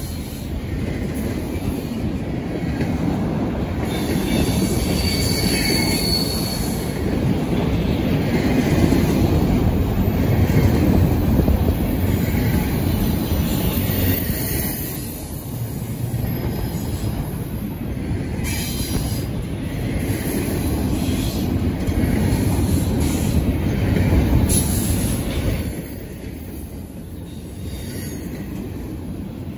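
CSX double-stack intermodal freight train's container well cars rolling past: a steady rumble of steel wheels on rail, with brief high wheel squeals. It gets quieter near the end.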